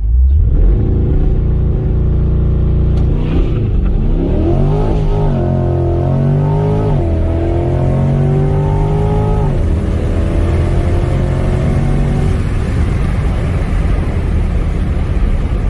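C8 Corvette's V8 accelerating hard from a launch-control start: the revs climb, then drop sharply at quick upshifts about seven and nine and a half seconds in. Rushing wind and tyre noise grow toward the end.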